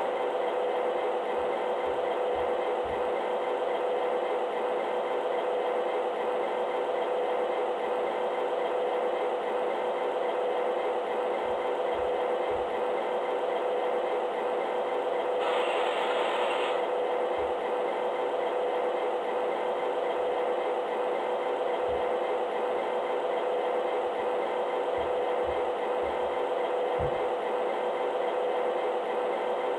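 MTH Premier O-scale CSX Dash 8 model diesel locomotive's onboard sound system playing a steady diesel idle through its small speaker, with the model standing still. A brief hiss a little past halfway.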